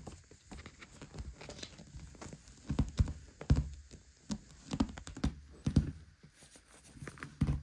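A kitten scrambling and clawing at a fabric cat-cave bed: irregular soft thumps with scratchy rustling, the thumps louder from about three seconds in.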